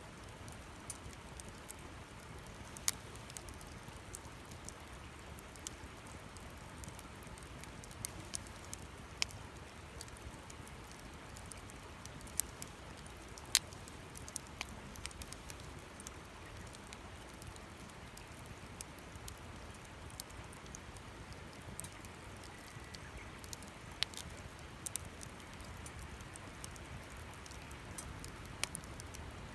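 Campfire crackling: a faint steady hiss with irregular sharp snaps and pops, a few of them much louder than the rest.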